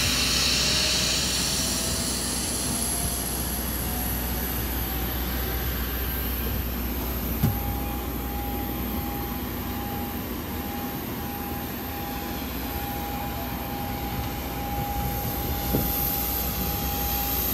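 Jet aircraft engine whine, steady, with a tone that rises slightly in pitch over the first few seconds and then holds. Two single knocks, one about halfway through and one near the end.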